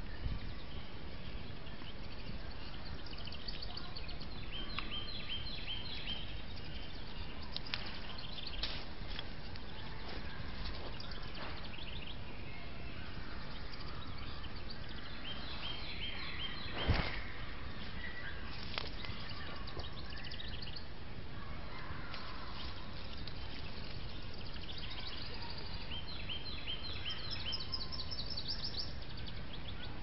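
A songbird sings short runs of quick repeated high notes several times over the trail camera's steady hiss. A single sharp click stands out about halfway through.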